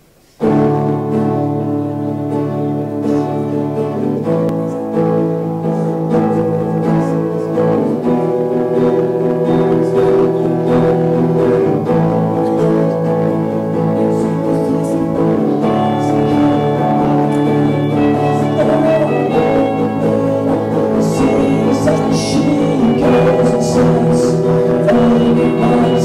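Live band playing: an amplified guitar strumming sustained chords, starting suddenly about half a second in, with drums coming in with light cymbal strokes about twenty seconds in.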